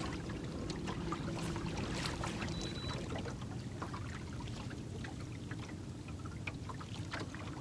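Small splashes and trickles of water lapping against a boat's hull, over a faint steady low hum, with scattered light clicks.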